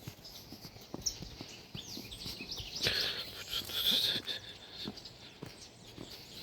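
Footsteps along a forest trail, with a bird chirping several times in a burst about two to four seconds in.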